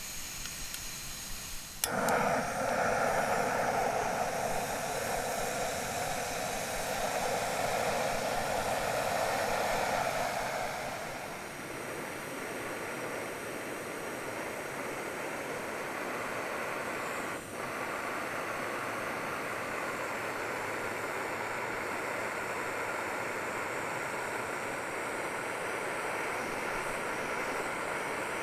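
Portable gas camping stove lit with a click about two seconds in, its burner then hissing steadily; the hiss eases and evens out about eleven seconds in.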